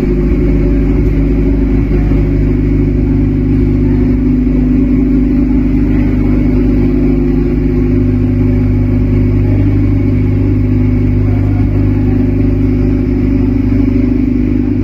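Ferrari 488 Challenge Evo race car's twin-turbo V8 idling steadily, held at a constant pitch with no revving; its low note gets stronger about halfway through.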